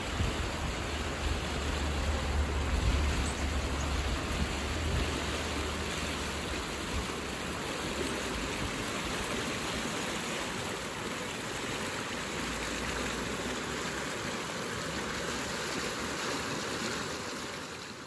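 Clear mountain river rushing over shallow rapids: a steady wash of water, with a low rumble of wind on the microphone in the first several seconds, fading out at the very end.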